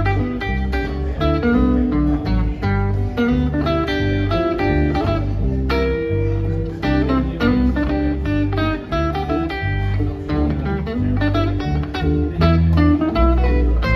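A live country band plays an instrumental passage without singing: Telecaster-style electric guitar, acoustic guitar and electric bass, with a steady run of picked notes over the bass line.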